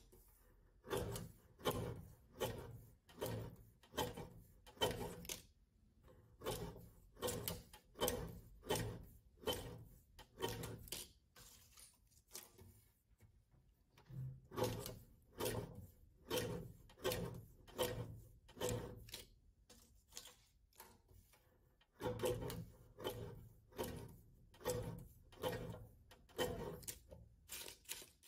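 Guillotine paper cutter cutting through paper cards, the blade arm brought down again and again with a short knock at each cut, about one or two a second. The cutting pauses briefly twice.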